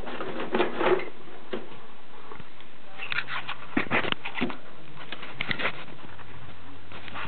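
Handling noise: scattered clicks and rustles in a few short clusters as the camera and the plastic RC truck body are moved about, with a faint low hum near the end.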